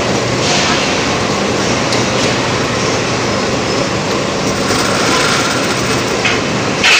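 Steady, loud din of factory machinery, an even mechanical rush with a low hum under it. A sharp metallic clang comes right at the end.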